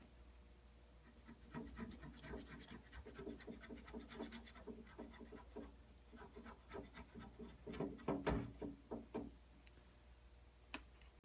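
Razor blade scraping old gasket material off a Jeep 4.0 thermostat mounting surface in many quick, short strokes. The strokes grow heavier around 8 seconds in and stop shortly after.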